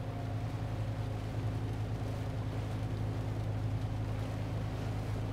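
Boat motor running at a steady speed, a low even hum.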